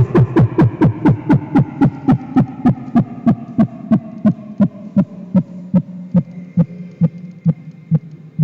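Electronic harsh-noise music: a regular pulse of short thumps, each falling in pitch, slowing from about four a second to about two, over a sustained drone whose tones sink slowly in pitch.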